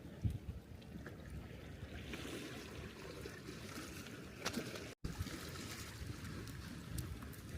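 Water lapping and trickling at the shoreline, a low uneven wash, with one sharp click about four and a half seconds in and a split-second gap just after.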